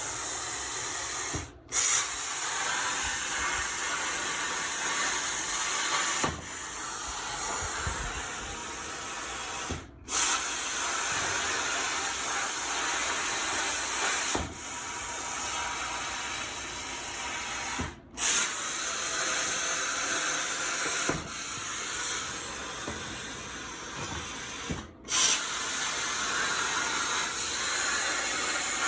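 CNC plasma torch cutting 13-gauge sheet steel at 35 amps: a steady loud hiss of arc and compressed air. It cuts out briefly four times, each time starting again with a short loud burst.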